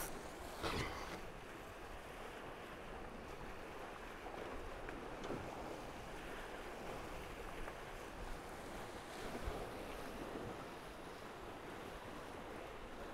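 Tornado racing catamaran under sail: a steady wash of water rushing past the hulls, with wind on the microphone. A brief knock sounds just under a second in.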